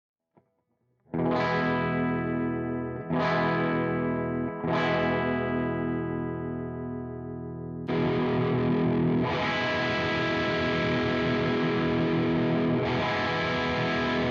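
Electric guitar through a JOYO Dark Flame distortion pedal, a Revv G3 clone. Three distorted chords are struck and left to ring out, then a continuous fast distorted riff starts a little past halfway.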